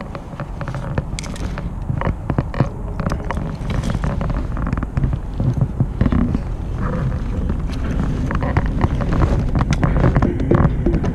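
Wind buffeting the microphone, with many light clicks and knocks from a striped bass being handled in a landing net on a kayak.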